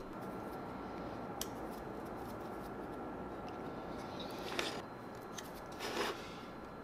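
Utility knife blade working at brass inlay pieces set in a walnut plate: a sharp click early, then two short scrapes about four and a half and six seconds in, over a faint steady hum.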